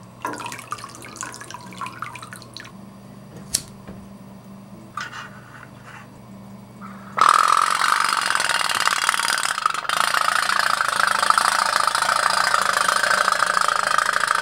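Tin pop-pop (putt-putt) toy steamboat from India: first quiet drips and small splashes of water as its engine is primed, then about seven seconds in its little steam engine starts suddenly and runs on loudly and steadily, popping rapidly as the boat moves.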